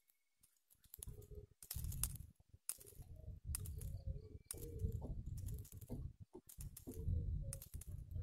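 Irregular sharp clicks and ticks from a spinning reel and ultralight rod being worked to retrieve a topwater pencil lure, starting about a second in, over a low rumble.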